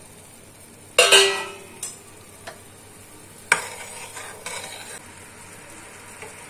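Steel ladle knocking against a metal kadhai while stirring boiling sugar syrup, over the steady hiss of the bubbling syrup. The loudest knock, about a second in, rings briefly; a few lighter knocks follow, with a sharp one near the middle.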